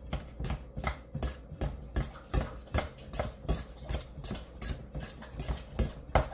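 Hand-held biscuit cutter chopping cold butter into flour in a mixing bowl, a steady run of quick chopping strokes about two or three a second, each a dull knock with a scrape.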